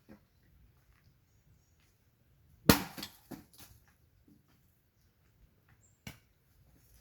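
Wood being chopped by hand. There is one loud sharp chop about three seconds in, followed by a couple of lighter knocks, then another single chop near the end.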